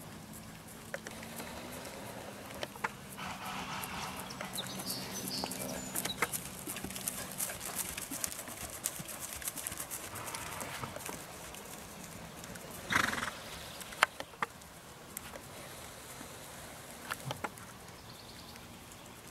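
Quarter Horse/Paint cross gelding trotting under saddle on grass: soft hoofbeats with scattered small clicks, and one loud short burst about two-thirds of the way through.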